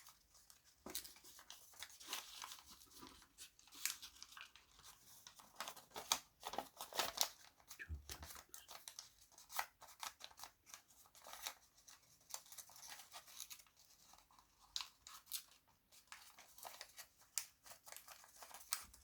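Sheet of origami paper being handled and folded, with irregular soft crinkles and creasing rustles as folds are pressed flat.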